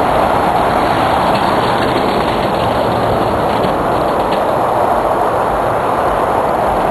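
A homemade steerable riding cart rolling along, its wheels giving a loud, steady rumble that does not let up.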